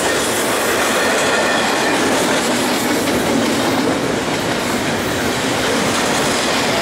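BNSF double-stack container train passing close by: a loud, steady rumble and rattle of the well cars and their wheels clattering over the rails.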